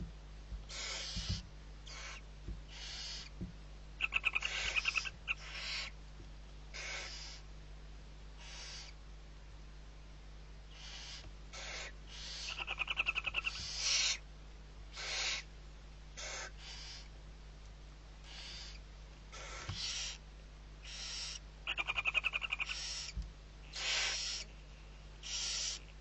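Barn owl owlets' begging calls: a string of short rasping hisses, each about half a second long, with three louder, rattling ones about 4, 13 and 22 seconds in.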